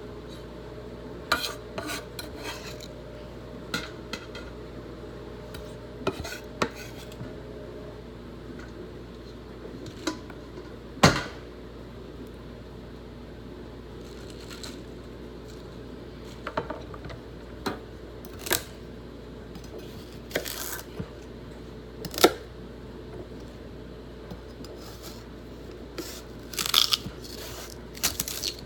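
Kitchen utensils and cookware clinking and knocking now and then, with a few sharper clanks, over a steady low hum.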